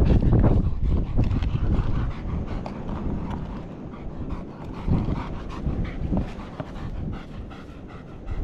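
A dog panting in quick repeated breaths over a steady low rumble.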